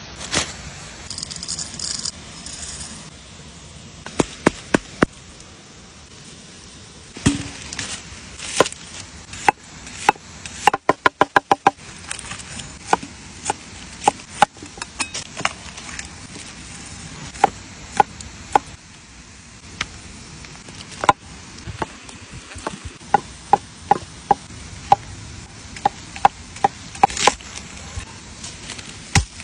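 Cleaver chopping on a thick wooden cutting board, cutting green herbs and garlic: sharp single chops spaced apart, with short runs of rapid chops, the fastest about eleven seconds in.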